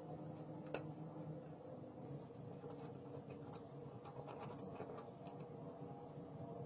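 Faint scraping and light clicking of a thin metal blade against a rusty revolver frame as rust is worked off, with a steady low hum behind.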